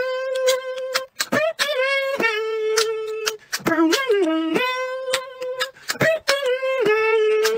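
Beatboxing: long held, hummed vocal tones that bend and dip in pitch, cut through by sharp mouth-percussion clicks and snaps in a repeating rhythm.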